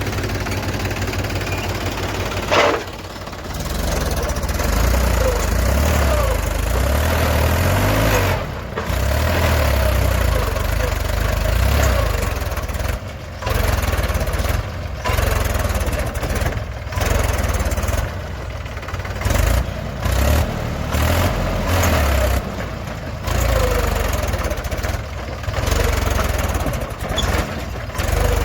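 Heavy diesel engine running, its revs rising and falling repeatedly, with several abrupt changes in level.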